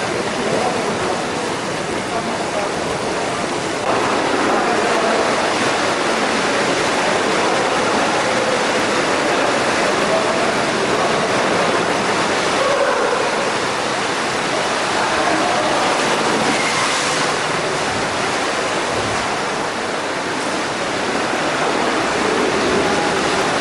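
Steady rush of running water echoing in an indoor swimming pool hall, with water gushing out of a water-slide tube into its splash pool. It gets louder about four seconds in, with faint voices underneath.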